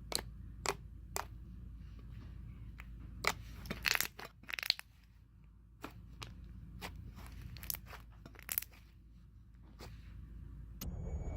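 Slime being squished and poked by hand, giving scattered sharp pops and short crackly clusters over a low hum.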